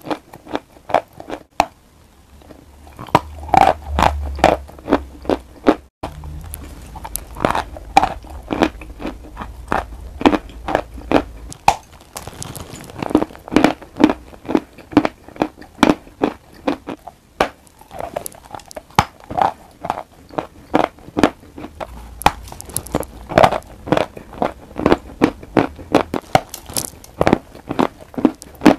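Close-miked biting and chewing of a bar of eating chalk topped with a brown paste: a steady run of crisp crunches, several a second, with a brief quieter pause about two seconds in.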